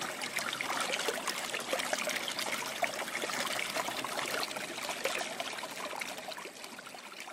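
Water trickling and burbling steadily, like a small stream, slowly fading out toward the end.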